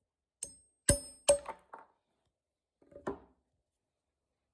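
Hammer striking the back of a knife blade to knock a leftover branch stub off a log: three quick ringing metal-on-metal blows in the first second and a half, then one lighter knock about three seconds in.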